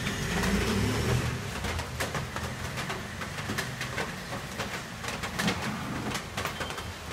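Rain falling with irregular sharp drips over a steady wash of noise, and a low rumble during the first second or so.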